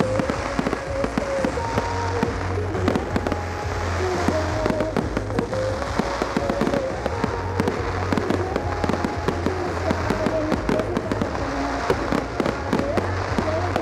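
Fireworks display: a dense, continuous run of sharp bangs and crackles from aerial shells and comet fountains. A tune with a clear, stepping melody and steady bass plays with it.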